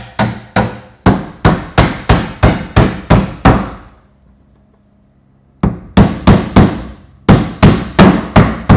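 Hammer driving nails through a plywood cabinet back into the shelves: a quick, even run of sharp blows, about two or three a second, with a pause of about a second and a half near the middle before the hammering resumes.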